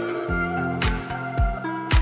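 Background music with a steady beat: held chords over low drum hits about twice a second, with a couple of sharp cymbal-like strokes.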